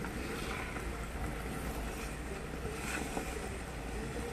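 Pot of chicken and potato stew simmering in an electric cooker, a steady hiss with a low rumble underneath.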